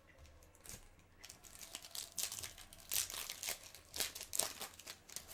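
Foil wrapper of a 2014 Bowman Chrome baseball card pack being torn open and crinkled in the hands, a run of crackles from about a second in to near the end.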